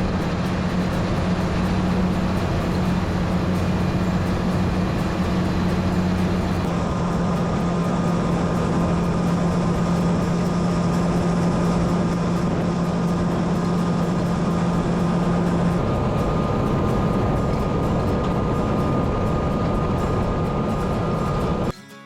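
Heavy diesel farm machinery running steadily, with a low drone; a higher whine joins about seven seconds in, the low drone eases about sixteen seconds in, and the sound cuts off suddenly near the end.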